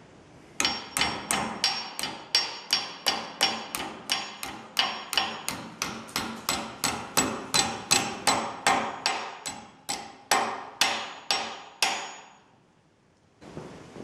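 Hammer blows on the prongs of a dinner fork clamped in a bench vise, bending them over at a right angle: a steady run of about two dozen sharp metallic taps, a little over two a second, each with a brief ring, stopping shortly before the end.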